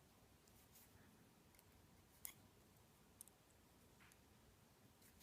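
Near silence with a few faint, brief clicks of small metal lock parts being handled, the clearest about two seconds in and another about a second later.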